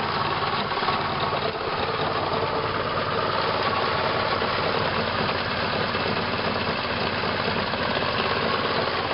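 Car engine idling roughly, heard up close in the engine bay, with a knocking sound from inside it. The motor is stumbling, not running as it should.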